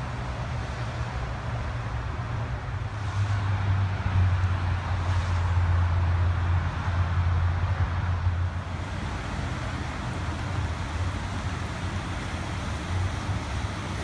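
Steady road traffic noise, with a low vehicle hum that grows louder from about three seconds in and eases back a little past eight seconds.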